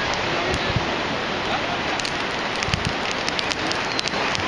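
Fireworks crackling: a rapid scatter of small, sharp pops from about halfway through, over a steady hiss.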